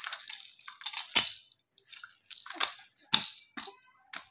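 Plastic baby rattle toy clattering as a baby shakes and knocks it about, in irregular bursts of rattles and clacks, the busiest in the first second or so.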